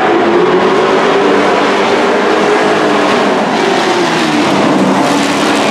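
Dirt-track race trucks' engines running hard as the field laps the oval, the engine note wavering up and down with the throttle.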